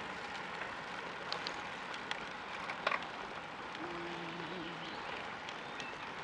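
Steady rushing of wind on the microphone and road-bike tyres rolling on tarmac, from a bike riding in a group. A few sharp clicks, and a brief faint low hum near the middle.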